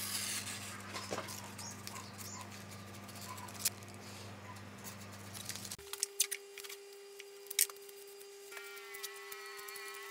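Blue painter's masking tape being handled, pressed down and trimmed with a hobby knife on a cast-iron lathe bed: small scratching and tapping sounds with a few sharp clicks. Under them is a steady low hum, which changes abruptly to a steady higher hum about six seconds in.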